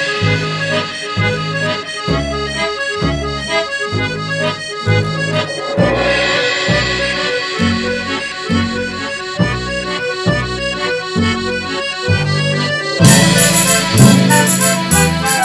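Instrumental music led by an accordion, with a steady rhythmic bass line. About 13 seconds in, it grows louder and fuller.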